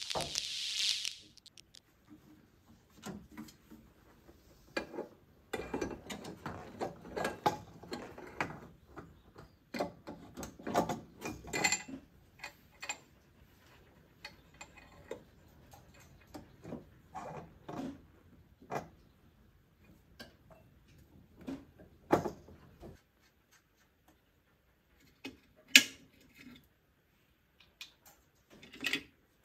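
Scattered metallic clicks, clinks and knocks of hand tools and engine parts as a carburetor is fitted onto the intake manifold of an old car engine, denser in the first half and sparser later. A short high-pitched sound lasting about a second opens it.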